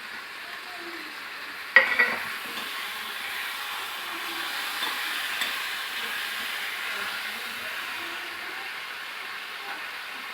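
Eggplant and potato frying in a pan with a steady sizzle, and a sharp double clatter about two seconds in.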